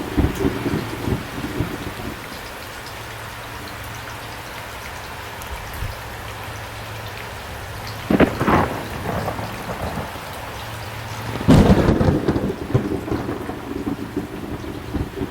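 Thunderstorm: steady heavy rain with rolling thunder. A sharp thunderclap comes about eight seconds in and a louder crash about three seconds later, rumbling on to the end.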